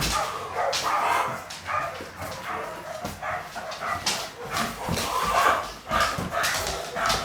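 Dog whining and yipping in many short, irregular bursts.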